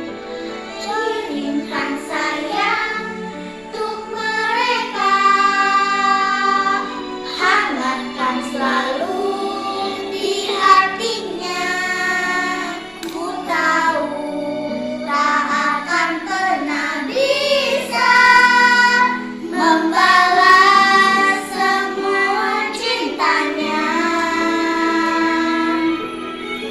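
A child singing a song in long held phrases.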